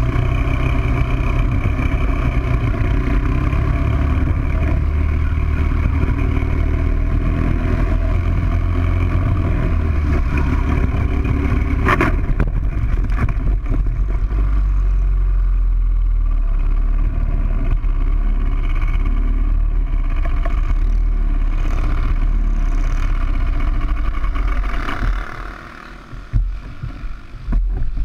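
Onboard sound of a racing kart's four-stroke engine running at speed with wind noise. About twelve seconds in there is a single sharp crack, after which the sound is mostly a heavy low rumble as the kart runs on the grass at low speed. Near the end the sound breaks up into uneven knocks with quieter gaps.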